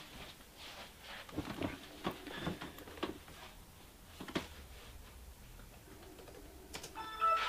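Scattered light taps, knocks and rustles of objects being handled, ending in a brief high squeak near the end, which is the loudest sound.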